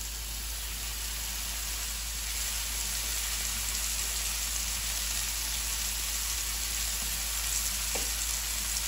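Beef chuck roast searing in hot oil in a cast-iron Dutch oven: a steady sizzle that builds a little louder as the meat sears.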